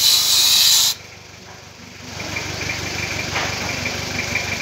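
A high-pressure spray lance hisses loudly as it blasts an engine cylinder head clean, then cuts off abruptly about a second in. After it, a low machine hum runs on and slowly grows.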